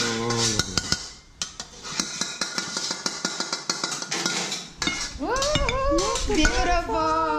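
Metal spatula scraping and tapping against a metal wok, pushing fried noodles out onto a plate in many quick strokes. Voices come in from about five seconds in.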